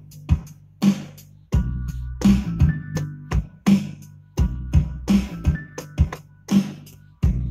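Hip-hop beat from a Native Instruments Maschine: a slow, even pattern of drum hits over a deep bass. A short melodic phrase comes in about one and a half seconds in and again near five and a half seconds.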